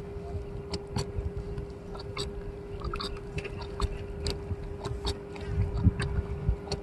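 Close handling of a freshly caught rohu on dry grass: irregular crackling clicks and rustles as hands grip the fish and work the line at its mouth, over a low rumble and a steady faint hum.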